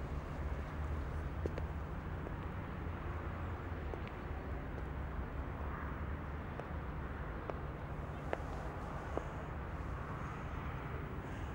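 Street background noise: a steady low rumble of traffic, with a few faint clicks.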